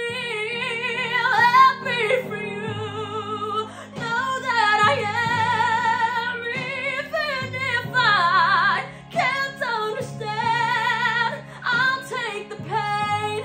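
A woman singing solo in a pop ballad style over a backing track of sustained chords, holding long notes with a wide vibrato and a fast falling vocal run about two-thirds of the way through.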